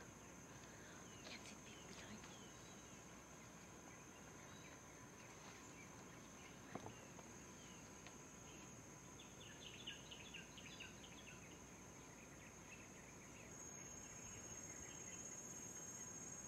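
Faint forest ambience: a steady high-pitched insect drone, growing louder near the end, with scattered faint bird chirps and a quick run of chirps about ten seconds in.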